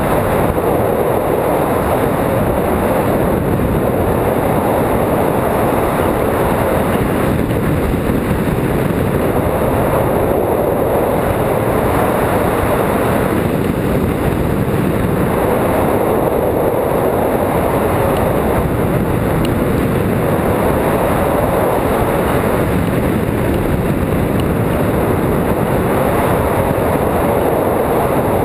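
Wind rushing loudly over the microphone of a camera mounted on a hang glider in flight. The noise holds steady and swells and eases every few seconds.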